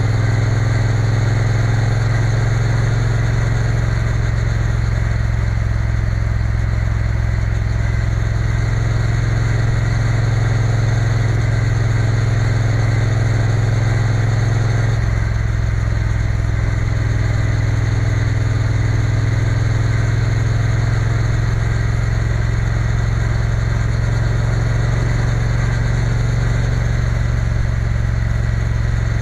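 Triumph Bonneville T120's parallel-twin engine running steadily as the motorcycle cruises along, a constant low drone whose tone shifts slightly about halfway through.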